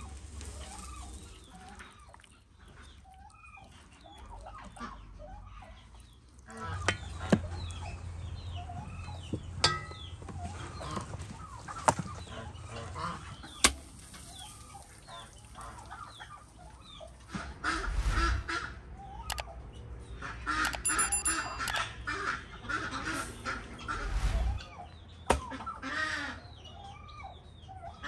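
Domestic chickens clucking, with the calls busiest in the second half. A few sharp slaps and knocks come through as raw whole chickens are pressed onto the inside wall of a clay tandoor.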